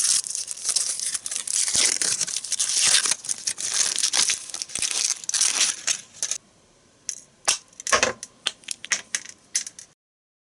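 Packaging being torn open and crinkled, a dense run of tearing and rustling for about six seconds, then a few separate crackles before it stops near the end.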